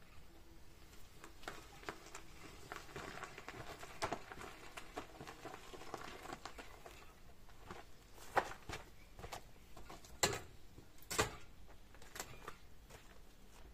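Light knocks, clicks and rustling from handling things, with three sharper knocks in the second half.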